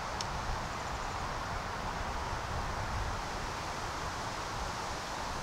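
Steady wind, with an uneven low rumble on the microphone and a broad hiss of tree leaves rustling.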